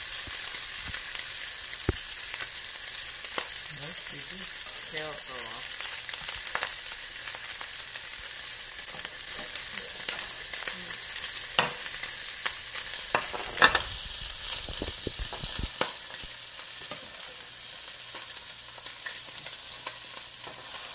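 Whole papio (young trevally) frying in oil in a skillet, a steady sizzling hiss with fine crackling. A few louder pops stand out, the loudest about two-thirds of the way through.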